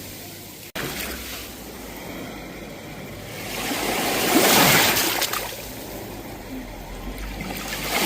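Sea waves breaking and washing on a shore. One wave swells up and breaks about halfway through, and the next starts building near the end, with a brief dropout under a second in.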